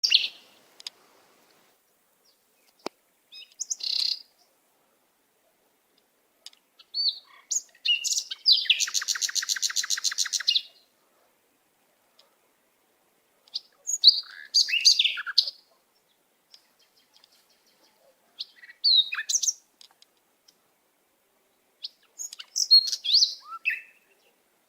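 Budgerigar warbling in short bouts of chirps and squeaks with pauses of a few seconds between them. About eight seconds in comes a longer buzzy, rattling trill lasting around two seconds.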